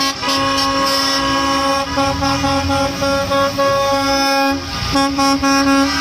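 School bus horn sounding in long, steady blasts, breaking briefly about two seconds in and again near five seconds, over the low rumble of buses passing on a wet road.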